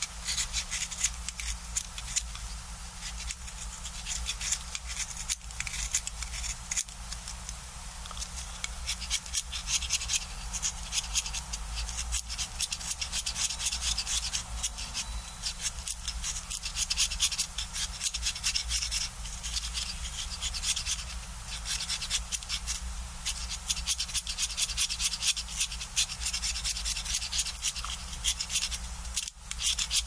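Utility-knife blade shaving the wood of a coloured pencil to a point: a continuous run of quick, short, dry scraping strokes.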